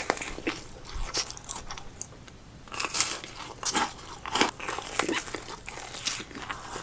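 Close-miked eating: bites into a Christmas donut followed by chewing, with irregular short crunchy, crackly mouth sounds.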